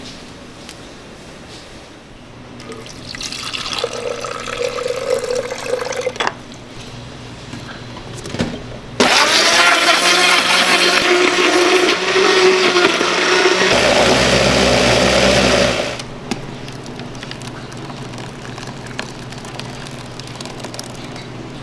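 Liquid pours into a countertop blender jar for a few seconds. Then the blender motor runs loudly for about seven seconds, puréeing greens with water, and its sound changes a little over halfway through. It stops suddenly.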